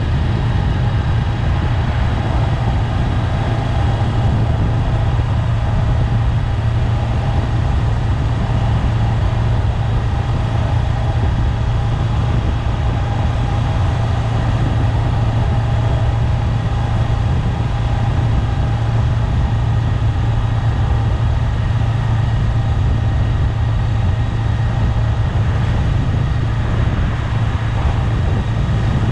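Honda 400X's parallel-twin engine running at a steady speed under way, its even low hum over a steady rush of road and wind noise, with no change in revs.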